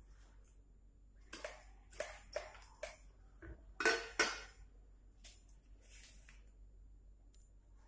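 Cupping gear being handled: hard cups and tools clicking and clinking together in a quick run of about ten sharp knocks over three seconds, the loudest two near the middle, then a couple of faint clicks.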